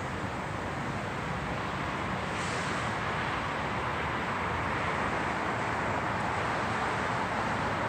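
City road traffic noise, a steady wash of tyres and engines that grows slightly louder a few seconds in.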